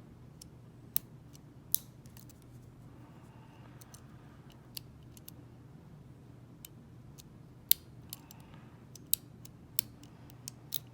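Lock pick and tension wrench working in a Zeni cabinet lock: irregular sharp metal clicks, spaced a second or so apart, over a faint steady low hum. The lock is not giving way, and no slight core turn is felt.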